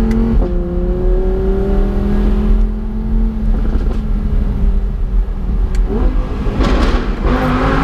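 Audi R8's engine accelerating through the gears, heard from the open cabin with the roof down. The pitch climbs steadily, drops at a gear change about half a second in and again near six seconds. It ends in a louder, rougher burst of hard acceleration.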